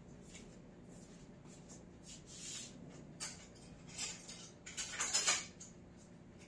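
Spoon and cutlery being picked out and handled: scattered light clicks and clatters, the busiest cluster about five seconds in.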